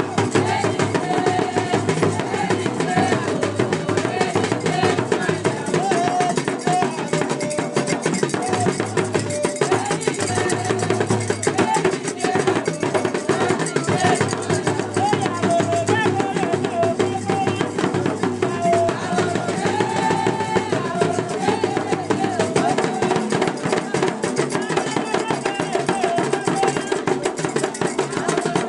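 Live ceremonial drumming on hand-held drums, a dense, continuous rhythm, with a group of women singing over it.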